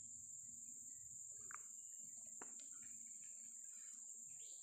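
Insects, such as crickets, keeping up a steady high-pitched trill, with a few brief bird chirps and a faint click about two and a half seconds in.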